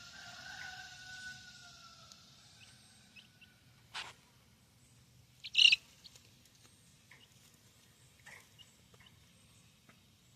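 Juvenile chickens calling softly while resting: a drawn-out, slowly falling call at the start, then a click and a short, sharp, loud sound about five and a half seconds in, followed by a few faint chirps.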